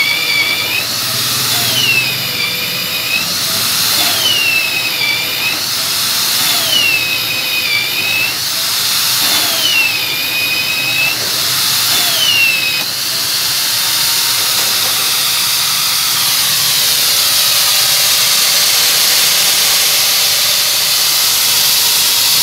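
Electric magnetic drill running under load while drilling. Its motor whine dips in pitch and recovers about every two seconds as the cutter is fed, then runs steadier from a little past halfway.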